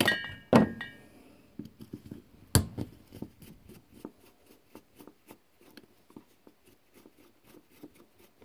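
Screwdriver working small screws in a Tecumseh carburetor's throat: two ringing metal clinks near the start, a sharp knock between two and three seconds in, then a run of light ticks and scrapes as the screws are turned.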